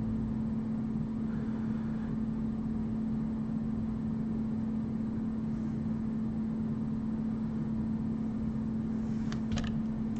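Steady low mechanical hum holding one constant pitch over a rumbling noise floor, with a couple of faint clicks about nine seconds in.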